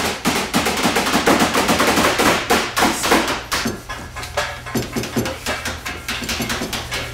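Several hammers striking a wooden boat hull in quick, overlapping blows, several a second, with a brief thinning about four seconds in.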